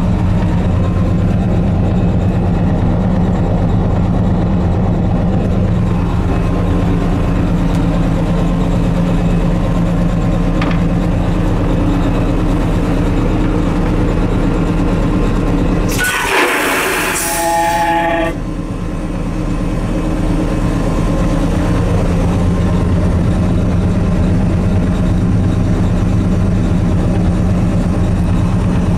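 Steady low drone of the GE Dash 9 locomotive's diesel engine running. About sixteen seconds in, the Envirovac vacuum toilet flushes: a loud rushing hiss of air sucked through the bowl for about two seconds, with a whistling tone near its end, before the engine drone carries on.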